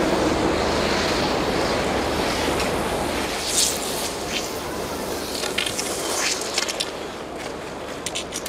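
Steady outdoor noise, with short scrapes and clicks from about three and a half seconds in: cross-country skis and ski poles scraping and knocking on the snow.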